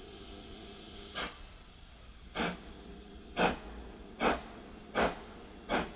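GWR Hall class 4-6-0 steam locomotive No. 6989 'Wightwick Hall' starting away from a stand. Six exhaust chuffs, beginning about a second in and coming gradually quicker as it gathers speed, over a faint steady low rumble.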